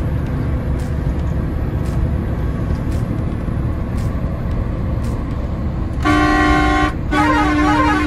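Steady engine and road drone inside the cab of a BharatBenz truck under way. About six seconds in a horn sounds: a short steady blast, then after a brief gap a longer one with a warbling, up-and-down tune over a steady tone.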